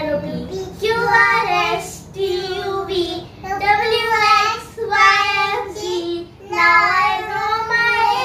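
A young girl singing in a high voice, in several drawn-out phrases with short breaks between them.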